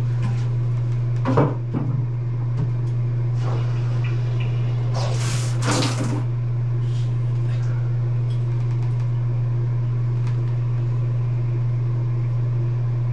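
Water running steadily from the bathroom tap while a plastic bucket is filled, heard as a steady low hum, with a clunk and a few knocks of the bucket early on and a short splashing rush about five seconds in.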